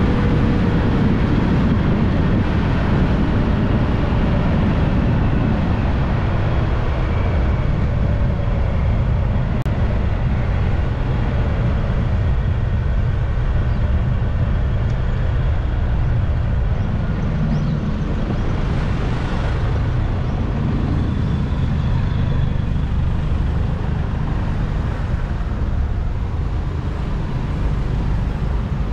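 Motorbike under way, a steady low rumble of engine, wind and road noise; the engine's pitch falls slightly in the first few seconds.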